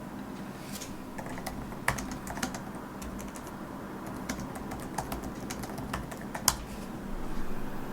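Typing on a computer keyboard: a dozen or so sharp keystroke clicks at an uneven pace, the loudest about six and a half seconds in, over a faint steady hum.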